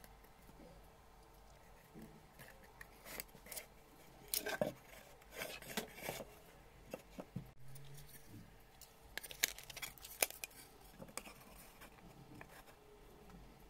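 Thin wooden boards being handled and pressed together into a glued box: light knocks, taps and scrapes of wood on wood and on the tabletop, coming in two clusters.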